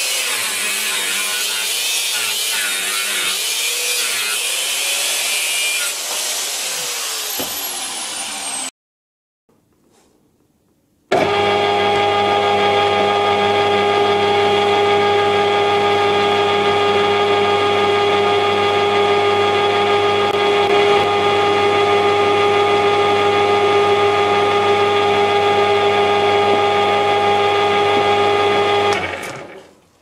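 Angle grinder with a thin cut-off disc cutting through a block of aluminium, its pitch wavering under load. After a brief near silence, a metal lathe runs steadily with an even whine of several steady tones, turning an aluminium part in its chuck, and stops near the end.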